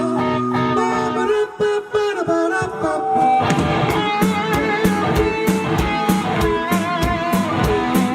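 A rock band playing live. Held notes ring out, the music thins and dips briefly about a second and a half in, then drums and the full band come back in about three and a half seconds in.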